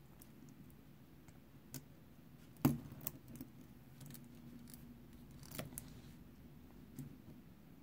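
Stainless-steel dive watches on link bracelets being handled and swapped: a few scattered clicks and metallic clinks of bracelet and bezel, the loudest a little under three seconds in.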